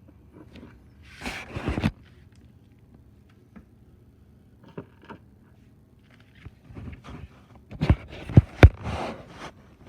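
Handling noise of a small RC car electric motor being taken apart by hand: a short scraping rustle about a second and a half in, then a cluster of sharp clicks and knocks of small hard parts about eight seconds in.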